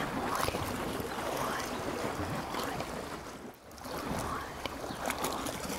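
Sea surf washing on the shore, a steady rushing noise that dips briefly a little past halfway.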